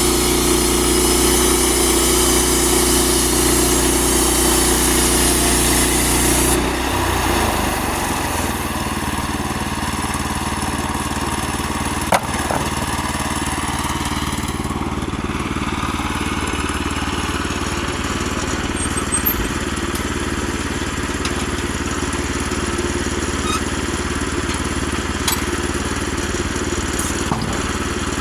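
Woodland Mills HM122 sawmill's gas engine running at high speed, then suddenly dropping to a lower idle about six and a half seconds in. A few sharp knocks sound over the idle.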